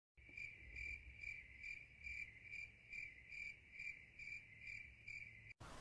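Crickets chirping in an even rhythm, about two chirps a second: the stock "crickets" sound effect for an awkwardly empty, silent place. It cuts off suddenly near the end.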